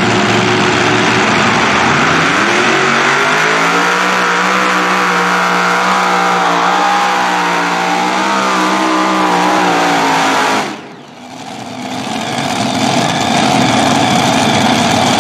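Multi-engine super modified pulling tractor under full power. The engines rise in pitch about two seconds in and hold a loud, steady high pitch. The sound drops away suddenly about ten and a half seconds in, then builds back up into a rough engine noise.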